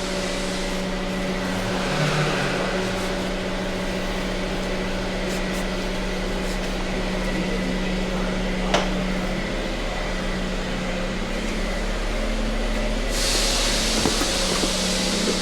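Steady machine hum of shop equipment running. There is a single sharp click about nine seconds in, and a loud, even hiss starts near the end.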